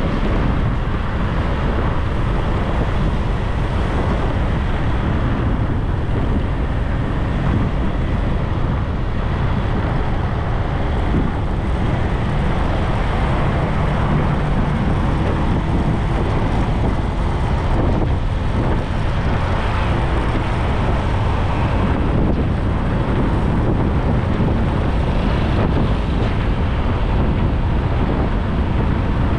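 Steady wind buffeting on the microphone of a moving bike, mixed with the running noise of road traffic.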